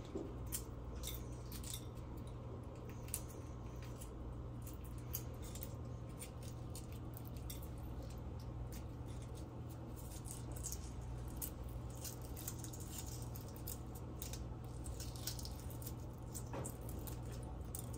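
Hard-boiled eggs being peeled by hand: small, scattered crackles and clicks of eggshell cracking and breaking off, over a low steady hum.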